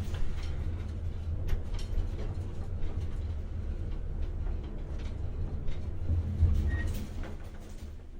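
An old elevator in motion: a steady low rumble from the car and its machinery, with scattered clicks and rattles, easing off near the end.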